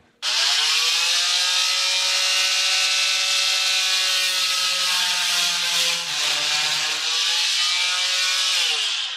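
Oscillating multi-tool cutting off a thin wooden shim flush at a drywall seam: a steady high buzz that starts suddenly and drops in pitch as it winds down near the end.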